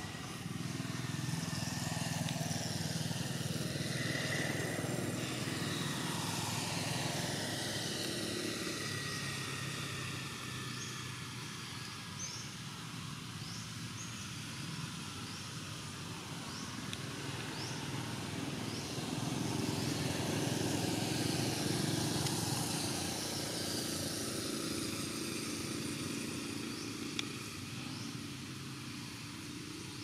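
Engines of passing motor vehicles, swelling and fading twice, the pitch sliding as each one goes by.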